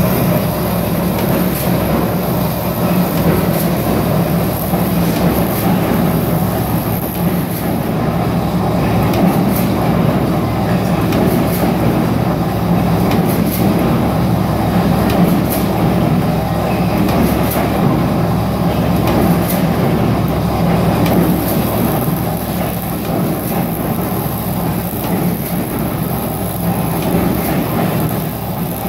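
Niagara SC2-200 200-ton mechanical punch press running, a steady low mechanical hum and clatter with scattered short clicks.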